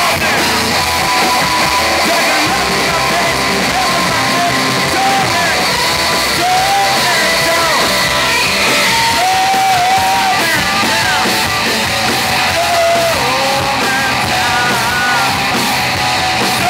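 Rock band playing live: electric guitars, bass guitar and drums, loud and steady, with a lead vocal sung over them.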